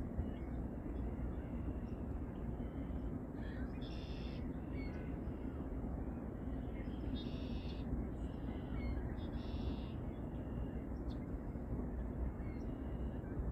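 A bird repeatedly giving short harsh calls, one every couple of seconds, over a steady low background rumble.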